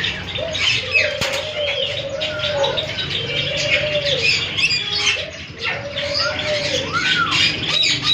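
A group of birds calling together: a low cooing call repeated about once a second, with higher arching chirps and twittering over it.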